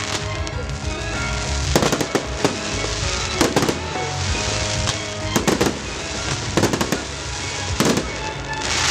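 Fireworks shells bursting in sharp bangs with crackle, about half a dozen over several seconds, over loud music played for the display.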